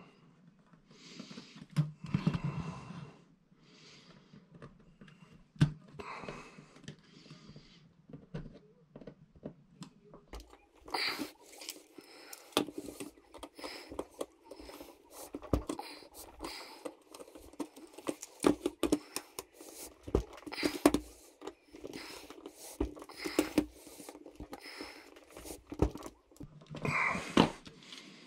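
Irregular clicks, taps and scraping of a Lionel 3656 stockyard's painted sheet-metal fence being worked into the slots of its plastic base, with the metal tabs pressed and bent over by hand and small tools. The clicking gets busier about ten seconds in.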